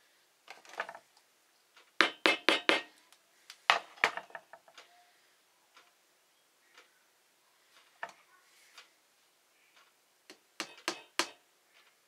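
Clusters of light wooden knocks and taps as small round wooden feet are set onto a glued wooden board. Near the end comes a quick run of hammer taps on one foot, seating it in the glue.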